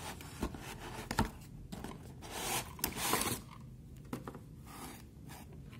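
A cardboard box and its cardboard insert scraping and rustling as a small DVR is slid out of it by hand, loudest in the middle, with a couple of light knocks in the first two seconds.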